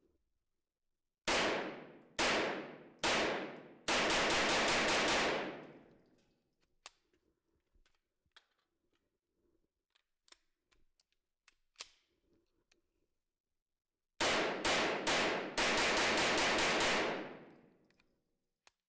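Grand Power Stribog 9mm pistol firing: three single shots about a second apart, then a rapid string of about eight, followed by a pause with small scattered clicks, then three more shots and a second rapid string, each string trailing off in a long echo.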